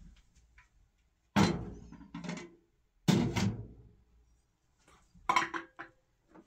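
Two loud metal clanks about a second and a half apart as a kettle and then a teapot are set down on top of a cylindrical metal heating stove, each ringing out briefly. Near the end come lighter clinks of tea glasses and a small metal bowl on a tray.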